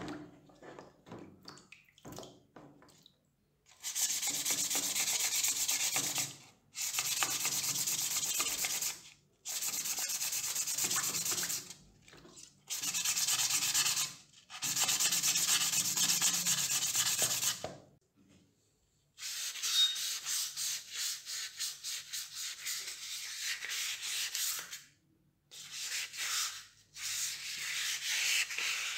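Fine 1500-grit wet-or-dry sandpaper rubbed by hand over a bronze candlestick section, wet-sanding in back-and-forth strokes. The sanding comes in bouts of a few seconds with short pauses, after a few light handling knocks at the start.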